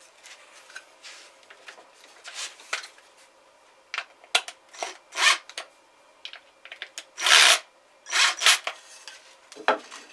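Wooden brackets and a cordless drill being handled: a string of irregular scrapes, rubs and knocks, the loudest a longer scrape about seven seconds in.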